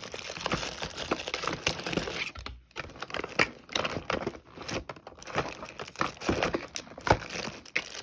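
Packaging crinkling and rustling, with small knocks and clicks, as items are handled and unwrapped.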